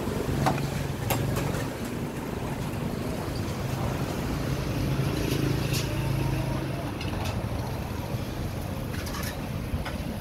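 Steel pot of water at a rolling boil, a steady low rumble, with a few light clicks spread through it.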